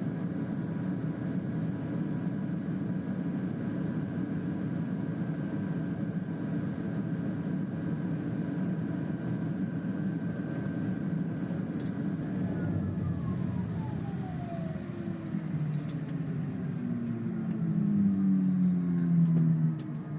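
Pilatus PC-12's single Pratt & Whitney PT6A turboprop, heard from inside the cabin, running at a steady idle with a thin high whine. About twelve seconds in the engine is shut down: the whine glides down in pitch as the turbine spools down, and a louder low tone falls near the end before cutting off.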